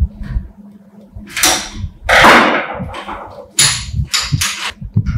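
Hammer blows on a cold chisel cutting through an old steel ring laid on a bench-vise anvil: about five sharp metal strikes, irregularly spaced, the loudest about two seconds in.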